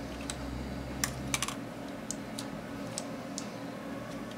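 Scattered small plastic clicks and taps as fingers work the battery and memory-card compartment door and its lock on the underside of a Canon G7X Mark II compact camera, about eight separate clicks at an uneven pace.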